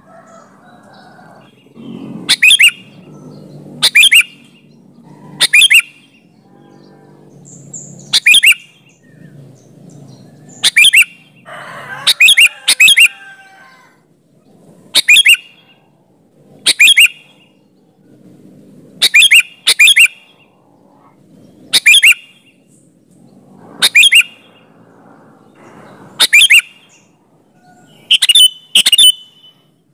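Sooty-headed bulbul (kutilang) calling vigorously: short, bright, loud calls repeated every couple of seconds, some coming in quick pairs.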